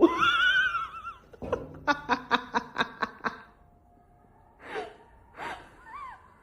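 A person's voice: a high-pitched cry, then a quick run of laughter, then a couple of gasping breaths.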